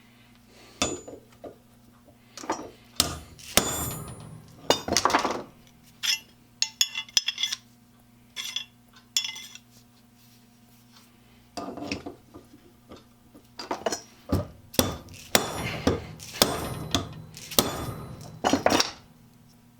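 Metal hand tools clinking, knocking and scraping on a workbench, with a few longer scrapes among irregular sharp clinks, over a steady low electrical hum.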